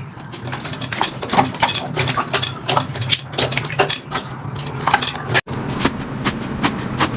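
Slime being squished and pressed by hand, making a dense, irregular run of small sticky pops and clicks. About five and a half seconds in there is a sudden cut to another stretch of the same.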